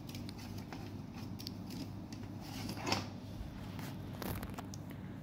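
Faint handling noises: a few light clicks and rustles as the LED backlight cable is moved about over the TV's metal back panel, the clearest click about three seconds in, over a low steady hum.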